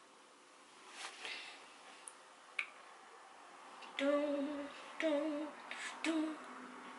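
A woman humming three short, wavering notes, about four, five and six seconds in, after a single sharp click earlier on.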